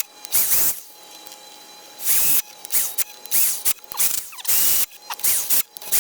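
Cheap power drill boring into a tree trunk with a 1.25-inch spade bit, running in short stop-start bursts of about half a second or less with pauses between. The budget drill is struggling in the wood and is burnt out soon after.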